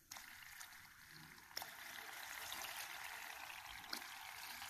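Mercury poured into liquid nitrogen in a glass dish: a faint, steady fizzing hiss of the boiling nitrogen, with two faint ticks, about a second and a half in and near the end.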